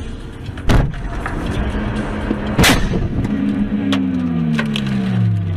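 A car collision recorded from inside a dashcam car: a heavy crash about a second in, then a second, louder impact about two seconds later. Scattered clattering follows, and a pitched drone slowly falls in pitch to the end.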